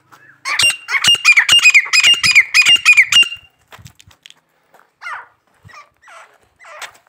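Grey francolin calling: a loud, fast series of harsh repeated notes, about three a second, for the first three seconds. After that come softer, scattered call notes that fall in pitch.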